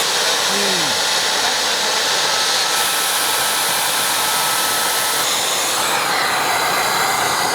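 Handheld CNC router running steadily as it cuts: a continuous whirring noise whose tone shifts slightly about three and five seconds in.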